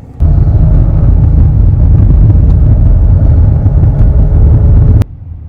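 Loud, low rumble of a car moving on the road, cutting in suddenly and stopping abruptly about five seconds later.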